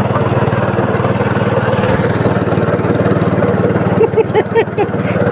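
A small engine running steadily with an even low chug, as the vehicle sets off toward the fishing spot.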